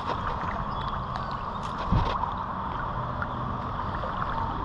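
Steady wind and water noise, with one dull low thump about two seconds in.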